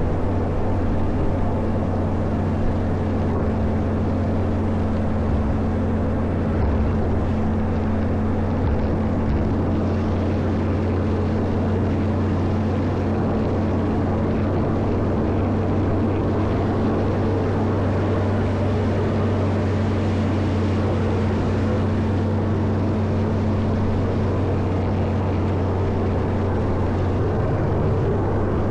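Caterpillar 140M motor grader's diesel engine running steadily, a constant low drone with no change in speed.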